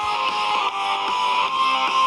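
Background music led by guitar, with steady pitched notes changing in quick succession.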